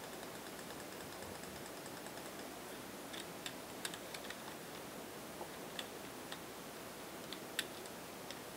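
Faint, scattered clicks of a computer mouse's buttons, about ten over several seconds, over a steady hiss of microphone noise.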